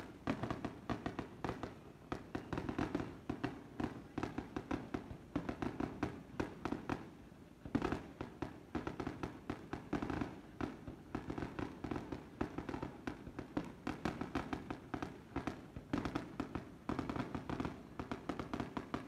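Fireworks display: aerial shells launching and bursting in a dense, rapid string of bangs and crackles, with one sharper bang about eight seconds in.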